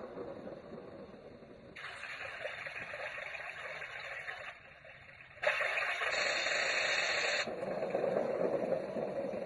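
Baby sound machine playing steady noise-type soothing sounds, some with a rushing, water-like character, that switch abruptly to a different track several times as sounds are picked from its phone app.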